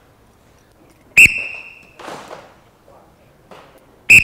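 Two short, sharp blasts on an instructor's whistle, one about a second in and one at the very end, each signalling a strike. After the first comes a brief, echoing clatter of practice sticks as the pairs strike and block.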